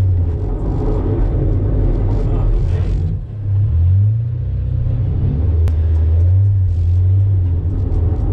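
Mazda MX-5 NB four-cylinder engine heard from inside the cabin, its note rising and falling as the throttle is worked, with a brief lift off the throttle about three seconds in.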